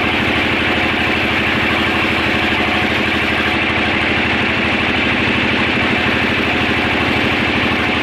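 Sawmill engine running steadily at an even pace, with a fast, regular pulse that does not change.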